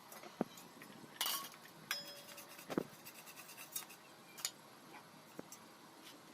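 Dishes and cutlery clinking: a handful of light taps and clinks, with one brief ringing tone about two seconds in.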